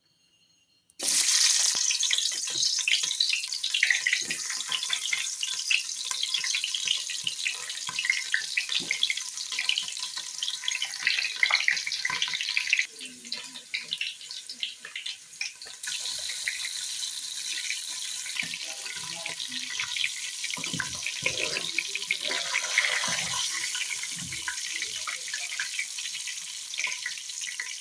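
Water running from a tap into a sink, with splashing and small knocks. The flow starts about a second in, drops off for about three seconds near the middle, then runs again.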